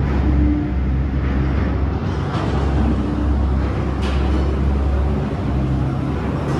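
Steady low drone of heavy machinery running, with a constant deep hum.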